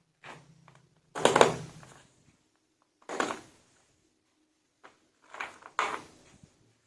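Hard plastic toy figures being handled and set down, a series of knocks and clatters with the loudest about a second in and two more strong ones later.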